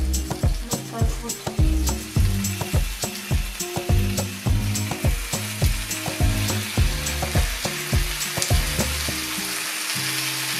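Background music with a steady beat, over a light sizzle from fried pollock pieces being laid into a hot frying pan.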